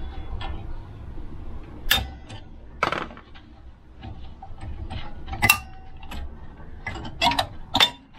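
Metal clinks and rattles of a Volvo 940's drum-type handbrake shoes and their springs as they are worked off the rear brake backing plate by hand. There are scattered sharp clinks, some ringing briefly, and a quick cluster of them near the end.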